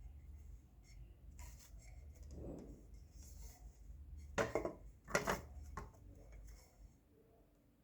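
A crumbly white cube being crunched, giving grainy, crackling crunches. The two loudest come close together just past the middle, with smaller crackles and rubbing around them.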